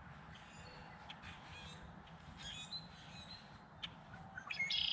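Birds calling faintly around a pond, with a louder, rapid, buzzy trill starting near the end.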